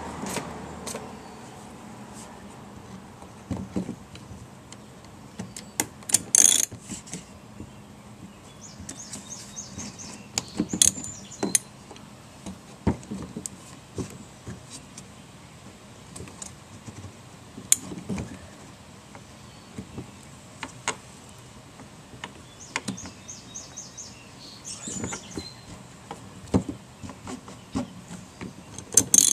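Scattered clicks, knocks and scrapes of a spanner tool and ratchet working the fuel pump lock ring tight on the fuel tank. There are two short runs of quick ratchet clicks, one about a third of the way in and one near the end.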